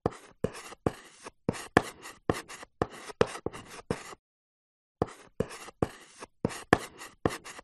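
Chalk writing on a blackboard: quick scratching strokes, about three a second, with a brief pause about four seconds in before the writing goes on.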